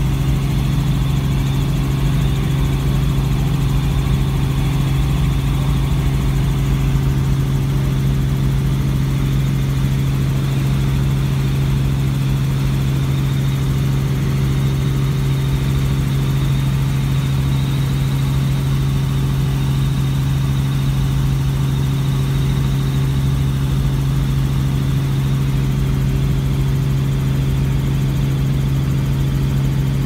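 Helicopter running steadily in flight, heard from inside the cabin: a constant low drone with a faint high whine above it.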